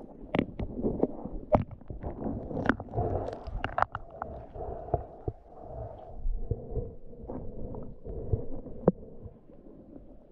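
Muffled underwater sound picked up by a submerged camera: a low water rumble with irregular sharp clicks and knocks, busiest in the first few seconds.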